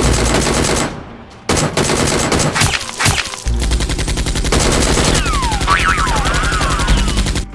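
Rapid automatic gunfire in long bursts, with a brief break about a second in. High whistling tones glide downward near the end.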